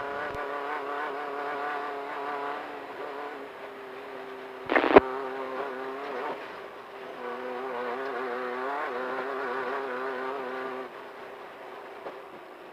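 Engine of a VW Beetle-based Class 1500 desert race car running under load, heard from inside the car as a buzzing drone whose pitch wavers up and down. A short loud burst comes about five seconds in, and the engine gets quieter after about eleven seconds.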